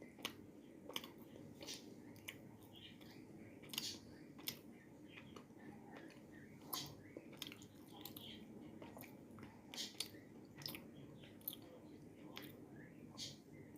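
Dry chunks of edible clay being bitten and chewed: faint, sharp, irregular crunches, one every second or so.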